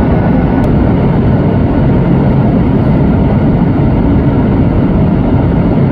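Boeing 737 airliner's jet engines running, a loud, steady rush with a low hum underneath.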